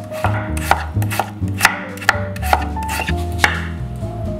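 A kitchen knife chopping through daikon radish and onion onto a wooden cutting board, making sharp, irregular knocks about twice a second. Light background music plays underneath.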